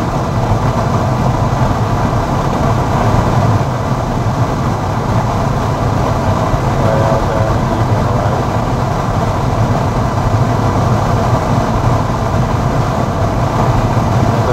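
Steady wind and road noise of a car driving at highway speed with its top down, with the engine and tyres running underneath.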